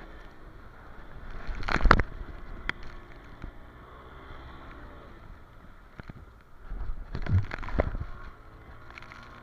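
The towing motorboat's engine hums steadily while the inflatable tube bounces over the wake. Water splashes and slaps against the tube twice, loudest just before two seconds in and again over about a second and a half around seven seconds.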